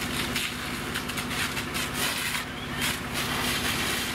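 Fire engine pumping at a working fire, its engine giving a steady low hum under a continuous rushing hiss with irregular crackles from hose streams and the burning house.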